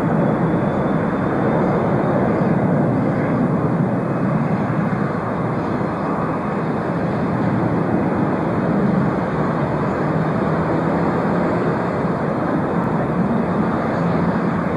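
Boeing 747 jet engines at take-off thrust as the airliner lifts off and climbs away: a steady, dense jet noise with a strong low rumble.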